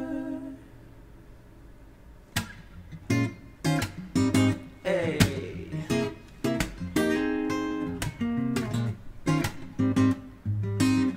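A sung note fades out, and about two seconds later a steel-string acoustic guitar comes in, playing a run of plucked notes and chords.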